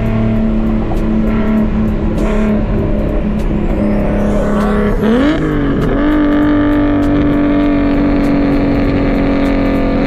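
Nissan Skyline R32 GT-R's twin-turbo RB26DETT straight-six heard from inside the cabin while cruising, a steady engine drone. About five seconds in the pitch briefly dips and then climbs to a steadier, higher note as the revs change.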